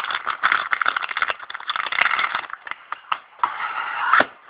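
Plastic packaging crinkling and rustling in quick irregular crackles as the camera's battery charger is unwrapped, with a single knock about four seconds in.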